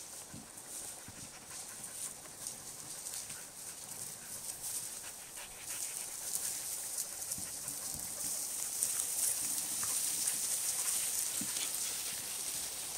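Norwegian Elkhound dogs panting and scuffling through grass and brush, growing louder over the second half.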